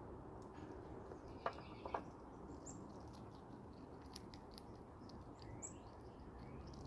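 Faint, crisp clicking and crunching of a chipmunk cracking and chewing nuts, with a low wind rumble on the microphone and a few faint high bird chirps.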